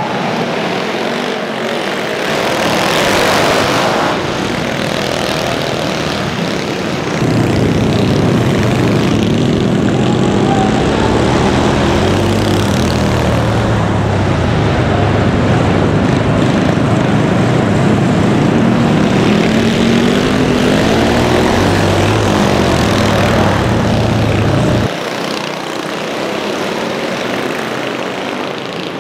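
Racing mini bikes' small single-cylinder engines at full throttle on a dirt track. Bikes pass with one sweep past about three seconds in; from about seven seconds one engine is heard up close from on board, its pitch rising and falling as the rider throttles on and off through the corners. That engine drops away about twenty-five seconds in, leaving the more distant pack.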